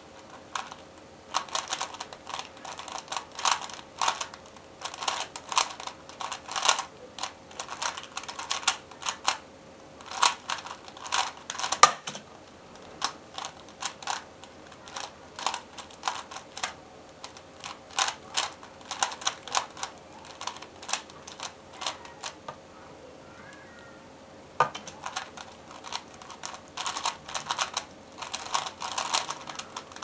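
A plastic 3x3 Rubik's cube being turned fast in the hands: rapid clacking of the layers in quick flurries with short pauses. There is a sharper, louder knock about twelve seconds in, and the clacking stops for a couple of seconds about three-quarters of the way through.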